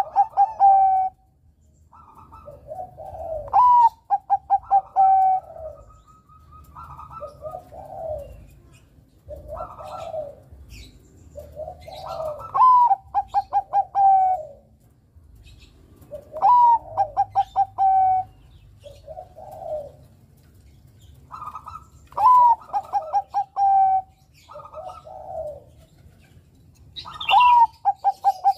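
Bangkok-strain zebra dove (perkutut) singing. The full phrase comes about every four to six seconds: a rising note, a quick run of short staccato coos, then a held final coo. Shorter, lower coos fill the gaps between phrases.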